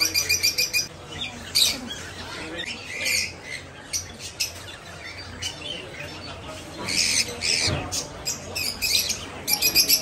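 Caged birds, budgerigars among them, chirping and squawking in short, scattered calls, with a fast run of repeated chirps near the end.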